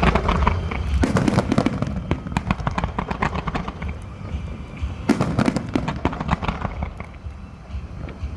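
Fireworks going off: a dense run of crackling pops and bangs over a low rumble, with louder clusters of bursts at the start, a second in, and again about five seconds in.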